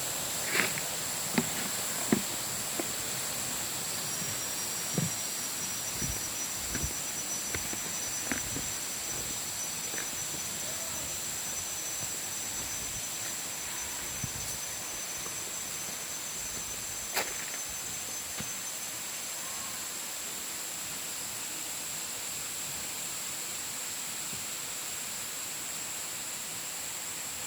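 Steady hiss of a waterfall, with a high, steady insect drone over it. A few short knocks come in the first ten seconds or so.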